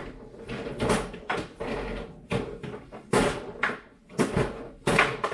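Table football (foosball) in play: about a dozen irregular sharp clacks and knocks as the hard ball is struck by the rod figures and the rods are pushed and spun.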